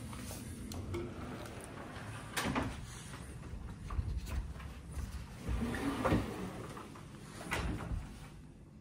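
Wood-veneer wardrobe doors being pulled open by hand: a handful of knocks and clatters, the loudest about two and a half and six seconds in.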